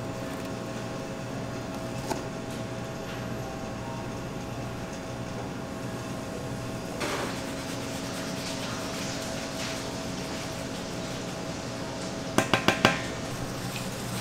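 Steady hum of kitchen equipment, with soft pouring and rustling of seasoning powder over ground beef. Near the end, four quick sharp knocks as a container is knocked against the rim of a large stainless steel mixing bowl.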